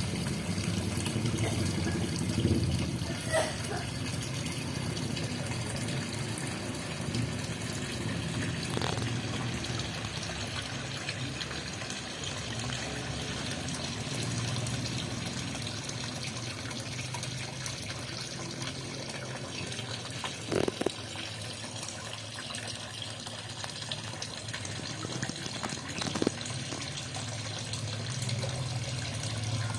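Water running steadily into a fish pond, with a few short sounds standing out about twenty and twenty-six seconds in.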